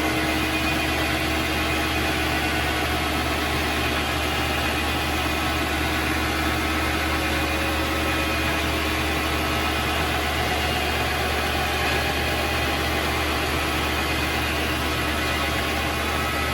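Vevor MX400 mini lathe running at a steady speed, a constant motor whine over a low hum.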